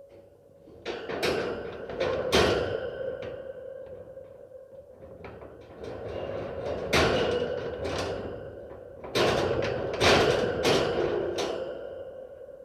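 Heavy iron cage door being worked open and shut: metal grating and a series of clanks that ring on after each strike, the loudest near the start, in the middle and near the end. A steady droning ambience tone runs underneath.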